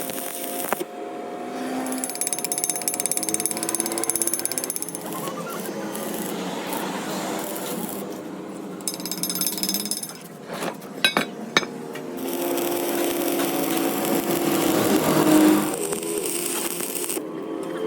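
Power tool hammering rapidly in stretches, with a few sharp metal knocks around the middle, during heavy axle repair work.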